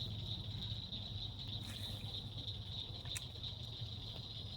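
Steady high-pitched chorus of crickets trilling without a break, over a low steady rumble, with one sharp click about three seconds in.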